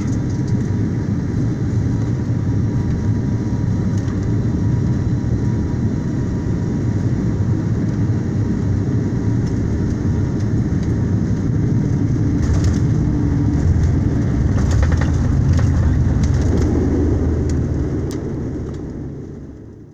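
Airliner cabin noise during landing: a steady low rumble of the engines and airflow through the fuselage. It grows louder in the second half, with a few light rattles, then fades away at the end.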